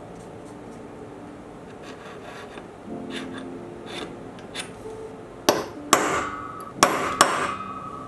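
Quiet handling and rubbing of metal pieces, then four sharp metal clanks in two pairs in the second half; the last strikes leave a short ringing tone.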